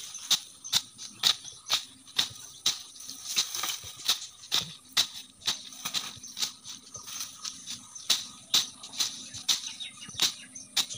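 A long-handled slashing blade swung through weeds and ferns, each stroke a sharp swish and cut, about two strokes a second in an even rhythm.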